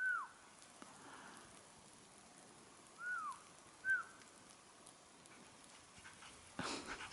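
Dog whining faintly in three short, high calls that fall in pitch: one at the start, one about three seconds in and a shorter one a second later.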